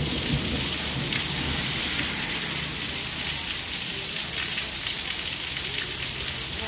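Heavy rain falling on a wet paved road and pavement, a steady hiss of drops splashing on the surface.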